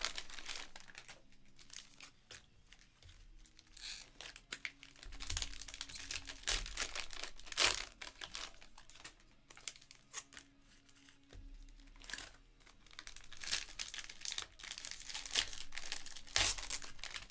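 Foil-and-plastic trading card pack wrappers crinkling and tearing as the packs are ripped open by hand, in irregular bursts with short pauses between.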